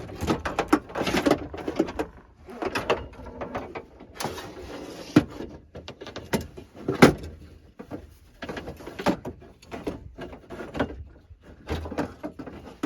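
Irregular metallic clanks, rattles and scrapes of a new window regulator being worked into a pickup truck's door shell, with two sharper knocks about five and seven seconds in.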